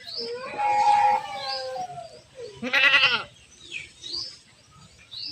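Goats bleating: a drawn-out call in the first two seconds, then a loud, quavering bleat about three seconds in, with another beginning near the end. Faint short bird chirps recur in the background.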